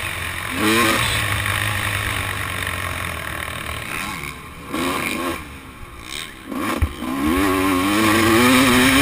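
Motocross dirt bike engine revving up and down through the gears, heard from the rider's helmet with wind rushing past. The throttle drops off for a couple of seconds midway, a knock follows, then the revs climb again.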